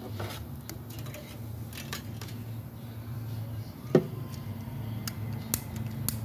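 Handling noises from wiring work on a mower: scattered light clicks and rustles, and one louder knock about four seconds in as a hand reaches into the plastic console, over a steady low hum.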